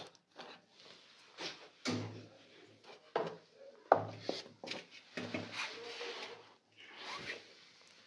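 Irregular rustling and rubbing from fresh coriander leaves being handled in a small plastic box, with a few soft knocks as the box is moved.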